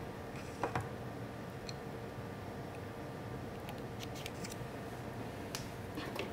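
A micropipette and plastic tubes being handled on a lab bench: a few small clicks and taps, about a second in and again near the end, over a steady faint hum.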